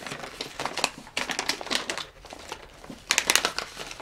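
Plastic packaging crinkling and crackling as it is handled and opened, in bursts of quick crackles, loudest about a second in and again near the end.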